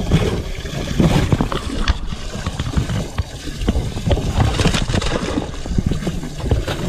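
Water sloshing and splashing in a bass boat's livewell as a hand reaches in for a fish, with knocks from handling and wind on the microphone.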